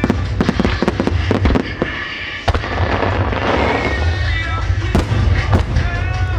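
Aerial fireworks bursting to music over loudspeakers: a string of sharp bangs, with a spell of dense crackling about three seconds in.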